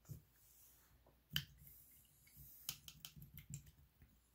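Faint, scattered clicks and taps of a small painted miniature being handled and set down on its base on a cutting mat: one sharper click about a second and a half in, then a cluster of small clicks near the end.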